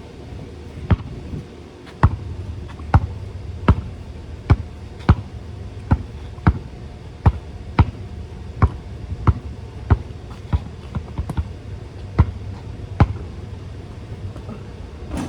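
A basketball being dribbled: a steady run of sharp bounces, about one and a half a second.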